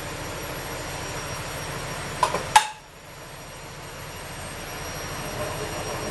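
Steady kitchen background noise at a gas stove, with two sharp clicks a little over two seconds in. After the clicks the noise drops away and slowly builds back.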